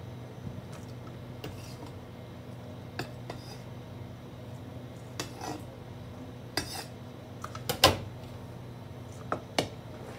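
Cut eggplant wedges dropped and scraped by hand into a stainless steel bowl, with scattered knocks and clinks against the metal bowl, the loudest about eight seconds in. A steady low hum runs underneath.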